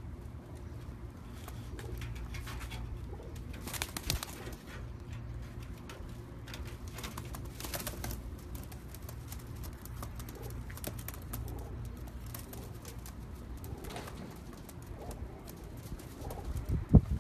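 Teddy pigeons cooing in an aviary over a steady low rumble, with scattered light scuffs and rustles. A single sharp knock near the end.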